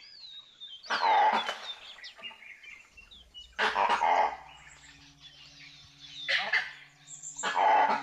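Harsh barking calls from an animal, four of them a few seconds apart, with faint bird chirps early on. A low steady musical drone comes in about halfway through.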